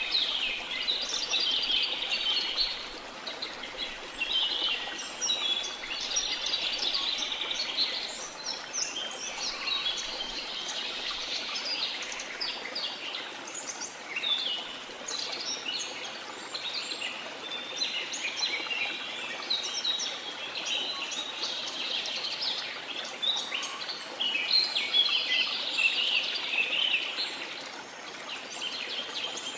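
Many birds chirping and trilling together, dense and overlapping, over a steady rush of falling water.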